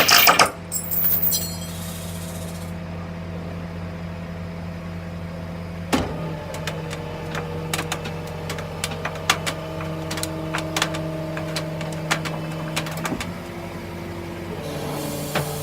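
A vehicle engine running steadily, its hum shifting pitch a few times, with scattered sharp clicks and ticks from about six seconds in.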